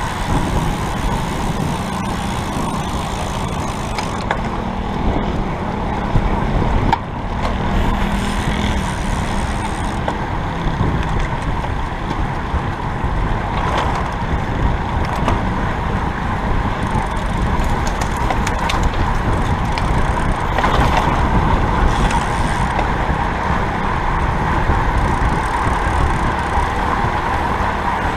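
Steady rush of wind on the microphone and tyre-on-road noise from a road bike ridden at race speed in a group of cyclists, with a few faint clicks.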